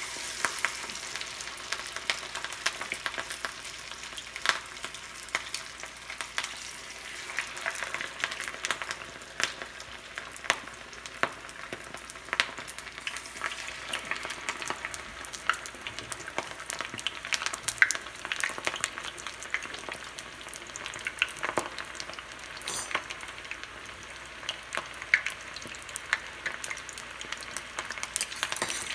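Marinated chicken lollipops deep-frying in hot oil in a small pot: a steady sizzle dotted with frequent sharp crackles and pops.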